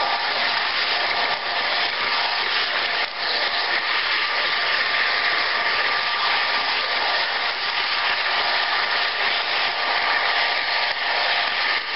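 Model train running fast on its track, heard from a car in the consist: a steady whir of the electric motor and wheels on the rails.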